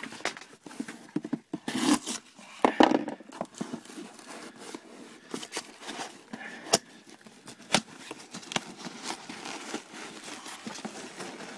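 Cardboard shipping box being opened: a folding knife slitting the packing tape, then the flaps pried and pulled open, giving scraping, rustling bursts about two and three seconds in and scattered sharp clicks after.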